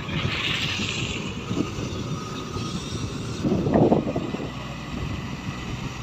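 Matador Shantui crawler excavator's diesel engine running under load as it digs, with a louder rough noise from the work about three and a half seconds in.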